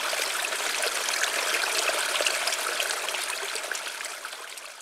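Water running and trickling steadily, fading out near the end.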